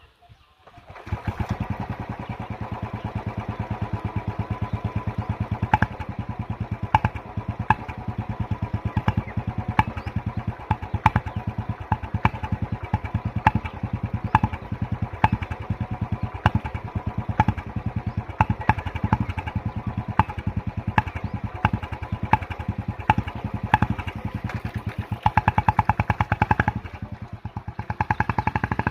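Royal Enfield Bullet 350's single-cylinder engine running through an aftermarket Indori silencer: a steady, even exhaust beat with sharp cracks recurring about once a second. It starts abruptly about a second in and grows louder near the end.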